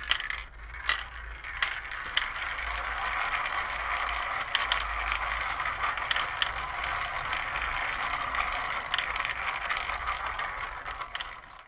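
Ball bearings dropped into a 3D-printed plastic marble machine with a few sharp clicks, then the machine's hand-spun gear and screw lift turning with a steady plastic rattle, the balls clicking now and then as they are carried up.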